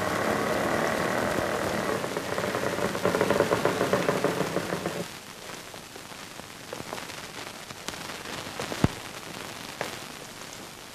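Busy street noise, a steady hum of motors with general bustle. It cuts off abruptly about five seconds in and leaves a fainter crackling hiss with a few scattered clicks.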